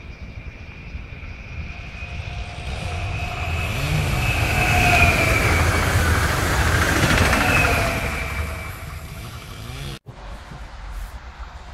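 Eurobahn Stadler FLIRT electric multiple unit passing at speed: the rumble of wheels on rails builds, peaks and fades, with a whine from the electric drive that drops in pitch as the train goes by. The sound breaks off abruptly about ten seconds in.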